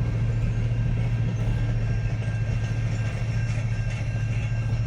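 Steady low hum of a truck idling, heard from inside the cab, with the rumble of a passing train at the crossing.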